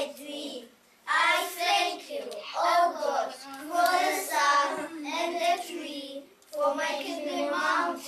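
A group of young children reciting a poem together in unison, in phrases of about a second each with short breaks between them.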